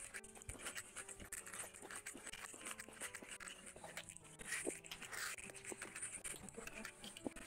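Close-up mouth sounds of a person eating chicken leg curry with rice by hand: chewing and biting with many short smacks and clicks.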